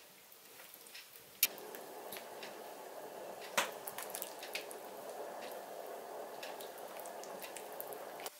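Ladle stirring soup in an enamel pot: liquid sloshing, with scattered clicks of the ladle against the pot, the sharpest about a second and a half in and another around three and a half seconds. The sloshing stops suddenly near the end.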